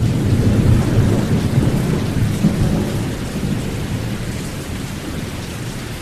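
A thunder-like rumble with a rain-like rush of noise on top, used as the sound effect for a logo ident. It is heaviest in the low end and fades slowly.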